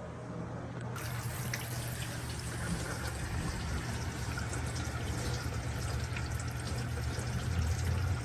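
Water running steadily, starting suddenly about a second in, in a leak check on a plumbing line.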